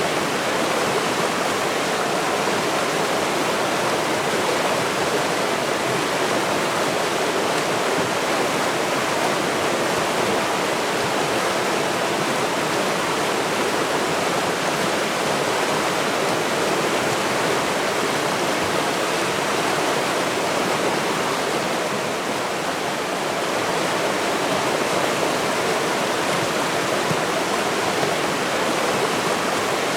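A river's water flowing in a steady, even wash.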